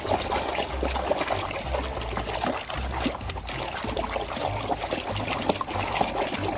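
Water pouring and trickling over a muddy plastic toy as it is rinsed, with small splashes and clicks.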